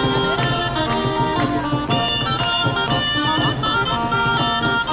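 Traditional folk street music: wind instruments playing a melody of held notes over a steady drum beat, accompanying dancing giant figures.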